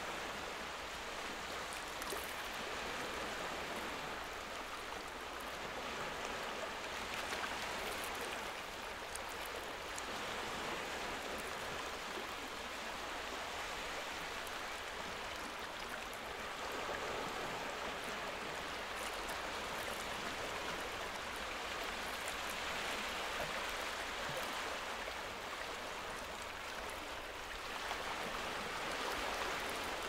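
Steady heavy rain falling, an even hiss that swells and eases slightly every few seconds.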